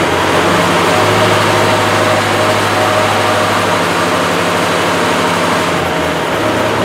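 Tractor engine running steadily while its three-point hydraulic lift raises a loaded steel carry basket off the ground. The engine note shifts slightly about six seconds in, as the lift nears the top.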